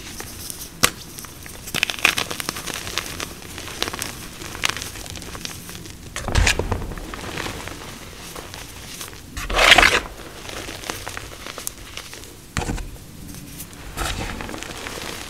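Fresh blocks of BSN and MagKing gym chalk (magnesium carbonate) crushed and crumbled by hand into loose powder: a steady run of soft crunching and crackling. The biggest crunches come about six and a half and ten seconds in, the second the loudest.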